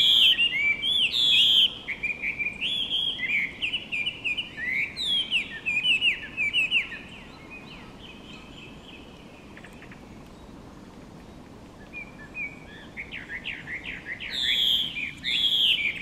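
Chinese hwamei singing: loud, rapid runs of varied whistled notes sliding up and down, breaking off for about five seconds in the middle before the song starts up again.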